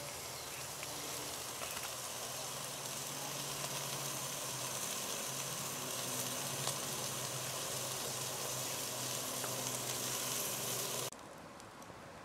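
Marinated meat sizzling on the grate of a charcoal grill over hot coals, a steady sizzle that cuts off abruptly near the end, leaving a much quieter background.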